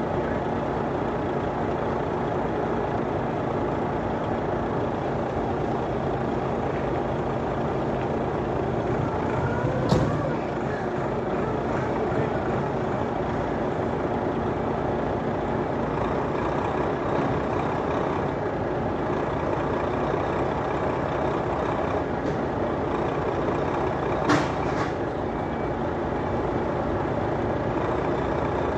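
Heavy diesel machinery of a container forklift and truck running steadily. Two short, sharp noises break through the engine sound, about ten seconds in and again near twenty-four seconds.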